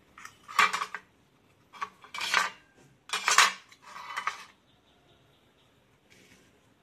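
Metal idli plates and kitchen utensils clattering as they are handled, in four short bursts over the first four and a half seconds.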